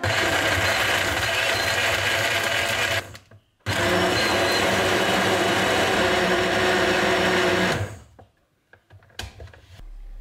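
Personal push-down blender running, crushing frozen banana and strawberries into a smoothie in two pulses: about three seconds, a short stop, then about four more seconds before it cuts off. A few clicks and knocks follow near the end as the cup comes off the base.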